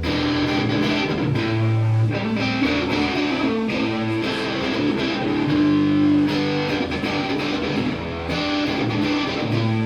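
A live band playing an instrumental passage: strummed electric guitar over bass notes, with no vocals. The full band comes in abruptly at the start, out of a held chord.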